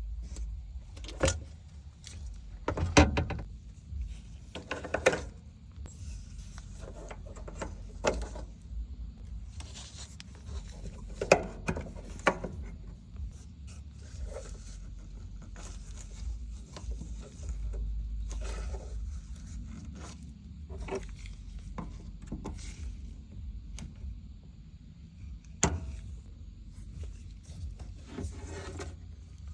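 Scattered clicks, knocks and rattles of tools and parts being handled, over a low steady rumble.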